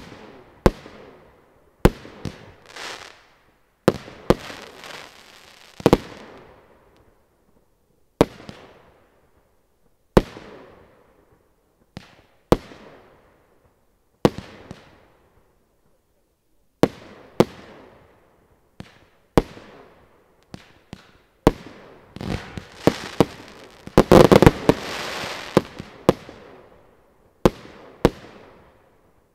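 Original's Brutal Box, a 76-shot 30 mm consumer firework cake, firing: single shells burst one after another about every one to two seconds, each a sharp bang with a fading tail. About three quarters of the way through comes a fast flurry of bangs with a dense rush of noise, the loudest stretch, before single shots resume.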